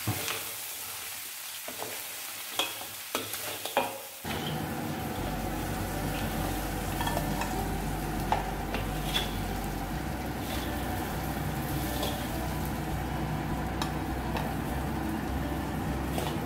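Crab pieces sizzling in a steel wok while a metal spatula stirs them and scrapes and knocks against the wok, lifting them out into a ceramic dish. A steady low hum starts about four seconds in.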